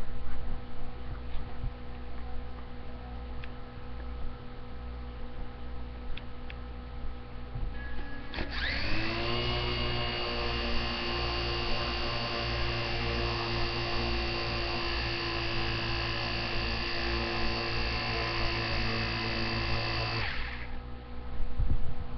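Small electric motor of a Zipwing toy plane spinning its propeller: a steady whine that starts about 8 seconds in, winds up quickly to speed, holds for about 12 seconds, then cuts off.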